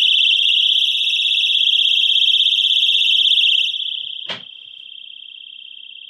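Pull-pin personal alarm sounding a loud, high-pitched tone with a fast flutter. It fades as it is lowered into a foam-insulated wooden box. The lid shuts with a knock about four seconds in, and the alarm goes on, much quieter and muffled by the foam.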